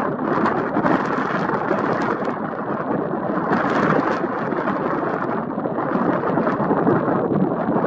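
Strong wind blowing across the microphone: a loud, steady rushing noise that swells and eases a little.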